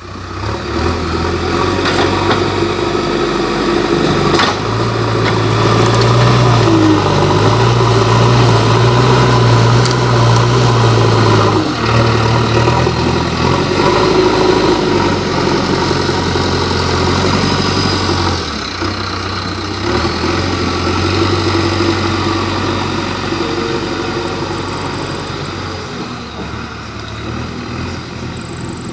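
JCB backhoe loader's diesel engine running under working load, its note rising for several seconds and then settling lower as the load changes, with a few faint knocks from the work.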